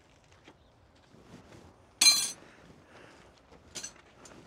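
Metal hand tools clanking together: one sharp metallic clank with a brief ringing about two seconds in, then a lighter clink near the end.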